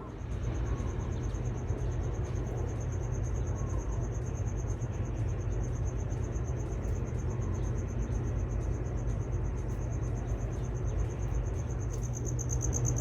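Insect trilling: a steady, high-pitched, finely pulsing trill that runs without a break and grows a little louder near the end. A steady low rumble lies underneath.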